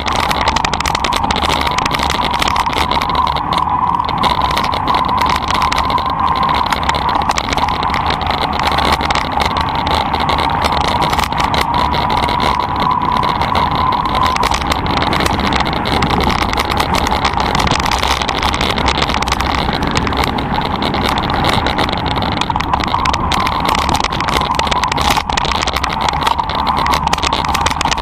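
Electric mountain bike on a gravel track: a steady motor whine over constant rattling and tyre noise. The whine fades about halfway through and comes back near the end.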